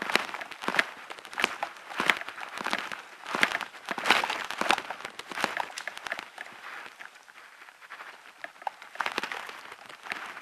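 Footsteps crunching along a tunnel floor at a steady walking pace, about three steps every two seconds. They grow fainter past the middle and come back louder near the end.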